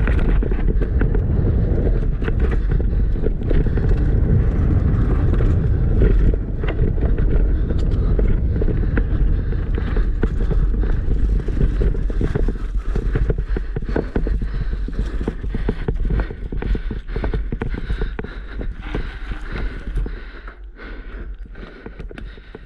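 Downhill mountain bike rattling over rough ground at speed: rapid clattering of the chain and frame over the rumble of tyres and wind on the microphone, easing off near the end.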